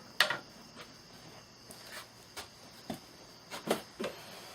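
Handling noise: scattered clicks and knocks as the parts of a fire-drill setup are fitted together on a table, about seven in all, the sharpest about a quarter second in.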